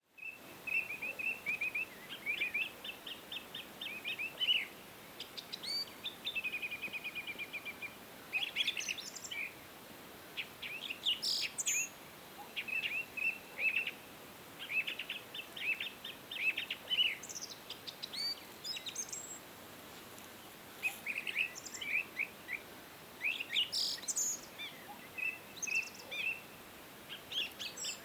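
Several songbirds singing together: short repeated chirps, trills and whistled phrases that overlap at times, over a faint steady hiss.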